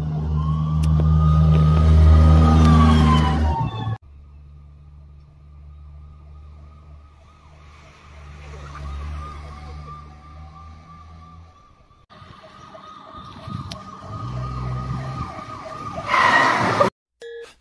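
Police siren wailing over a steady low engine hum. It is loudest in the first four seconds and breaks off sharply twice, then carries on more quietly.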